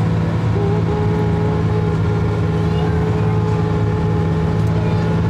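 Tour boat's engine running steadily: a loud, even low drone with a steady higher whine above it from about half a second in.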